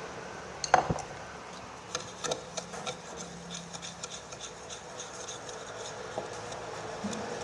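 A single knock, then a stirring utensil scraping and clicking against the side of a container as a glue and detergent-water slime mixture is stirred.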